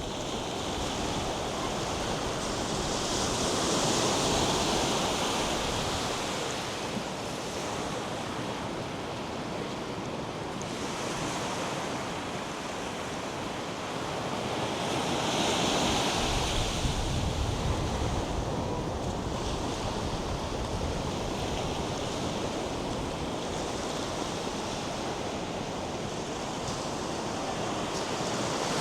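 North Sea surf washing onto a sandy beach in a steady rush, swelling louder as larger waves break about four and about sixteen seconds in. Some wind is on the microphone.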